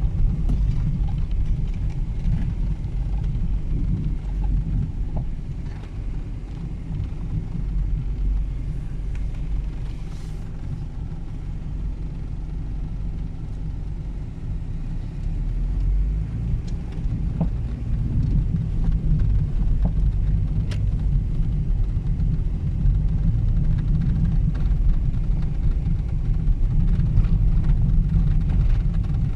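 A car driving on a winter road: a steady low rumble of engine and tyre noise, with a few faint clicks.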